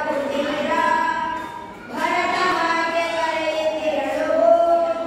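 Children singing a Kannada patriotic song (desha bhakti geethe) without accompaniment, in long held notes, with a short break for breath about two seconds in.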